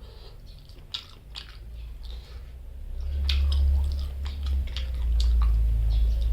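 A person chewing food close to the microphone, with wet mouth clicks and smacks. A loud low rumble comes in about halfway through and stays.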